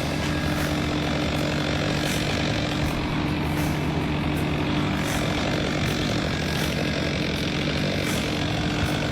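Chainsaw engine running steadily at a constant high speed.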